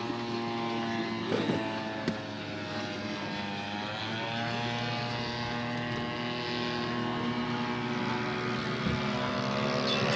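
Radio-controlled scale model airplane's engine running steadily in flight, its pitch bending slightly up and down partway through.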